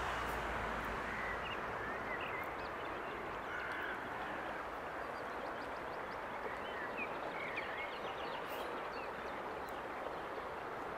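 Outdoor woodland ambience: a steady background hiss with faint, scattered bird chirps and a short, quick trill about seven seconds in.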